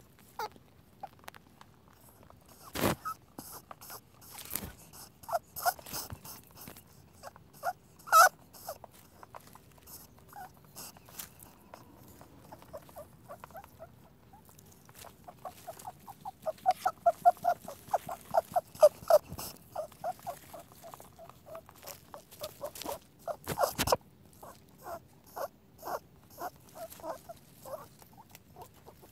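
Rabbit giving short squeaks and clicks, some in quick runs of several a second, with a few sharper, louder clicks.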